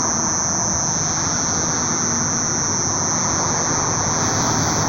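A steady high-pitched buzzing drone like a cicada's, holding one pitch, over a low rumbling noise. It is the unexplained hum that the recorder takes to come from the sky.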